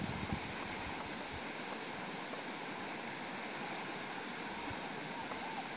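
A steady, even outdoor hiss with nothing distinct in it, and a couple of faint short high notes near the end.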